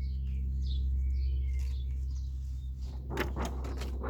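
A steady low hum with faint, short high chirps over it, and a brief louder rustle-like sound about three seconds in.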